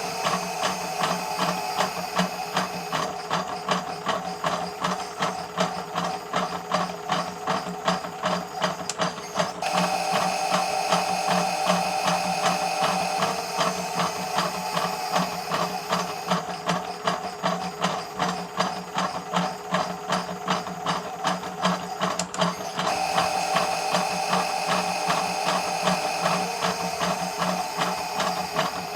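Miele W1 toy washing machine running its wash, the small electric motor whirring and the plastic drum gearing clicking in a rapid, even rhythm. The whirring breaks off and starts again twice, about a third of the way in and again near the end.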